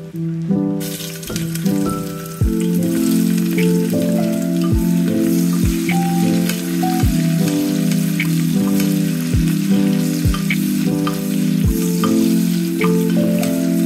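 Sliced onions hitting hot oil in an aluminium pressure cooker and sizzling loudly as they fry and are stirred with a wooden spatula. The sizzle starts suddenly about a second in. Background music plays over it.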